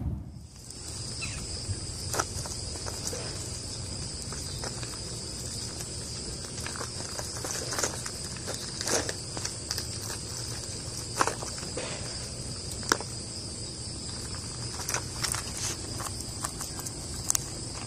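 A steady, high-pitched insect chorus, with scattered small clicks and crackles of peanut shells as chipmunks rummage in a plastic bowl of peanuts in the shell and pick them up.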